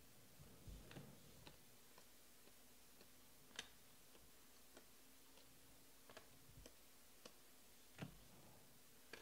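Near silence broken by a few faint, scattered clicks of Panini Prizm baseball cards being slid and flipped through in the hands, one card at a time.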